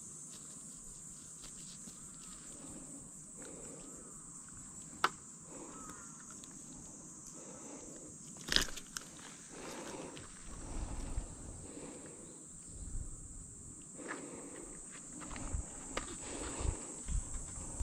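Steady high-pitched chirring of insects, with soft rustling and handling noises and two sharp clicks near the middle as a small bass is unhooked by hand.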